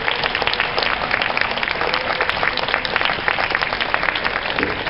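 Spectators applauding the end of a tennis match: a steady, even run of many separate hand claps.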